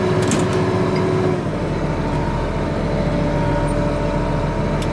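Case IH 7120 Magnum tractor's six-cylinder diesel running steadily with the New Holland BR780 round baler driven off it, a couple of short clicks near the start. About a second and a half in a steady whine drops out and the engine's low hum grows.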